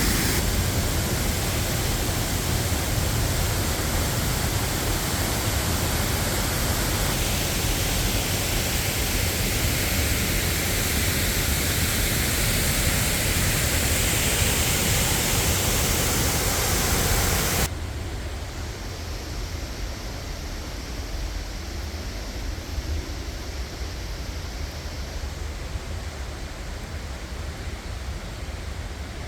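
A waterfall in full spate after heavy rain: a steady, loud rush of falling water. About two-thirds of the way through it drops suddenly to a quieter, duller rush.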